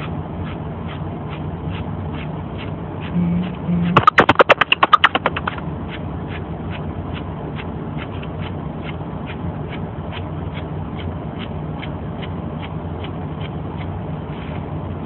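Dog grooming with a comb around the face: a faint regular ticking about three times a second over a low hum. About four seconds in comes a loud burst of rapid rattling pulses lasting about a second and a half.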